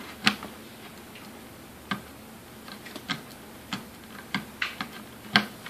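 Sharp plastic clicks of a 4+4-pin CPU power connector being worked and pushed into its motherboard socket, about seven irregular clicks, the loudest about a third of a second in and another near the end.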